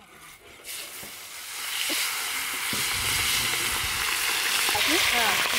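Hot oil sizzling as spice-coated pomfret fish pieces go into a large flat iron pan. The frying hiss starts about a second in and builds to a loud, steady sizzle by about two seconds, with a couple of light knocks in the first few seconds.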